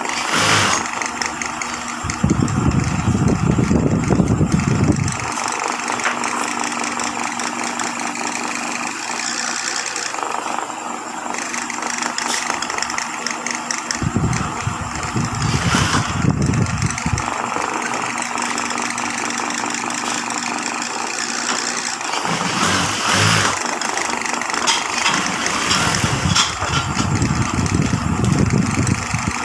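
High-speed industrial sewing machine running in stitching runs of a few seconds each, about four times, over a steady background of machine noise.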